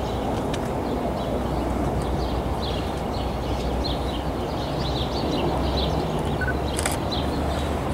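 Many small birds chirping over a steady low rumble from an NJ Transit PL42AC diesel locomotive and its train approaching in the distance. A single sharp click near the end.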